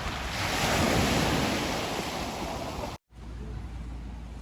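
Ocean surf: a wave swells to a loud rush about a second in and subsides, then the sound cuts off abruptly and gives way to a quieter, steady rumble.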